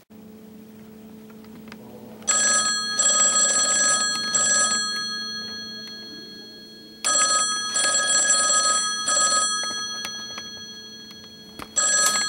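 Payphone bell ringing three times, about five seconds apart, each ring fading away over a steady low hum.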